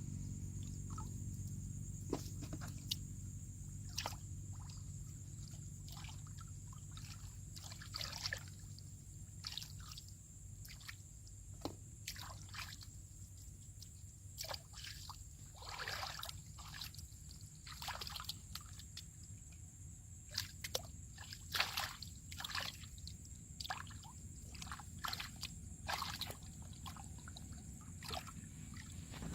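Water sloshing and trickling, with irregular small splashes over a low steady hum.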